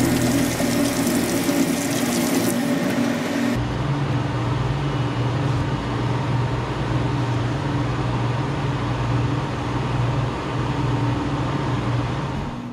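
Tap water running onto the chainsaw's filter pad in a stainless sink, shut off about three and a half seconds in; a steady low mechanical hum carries on after.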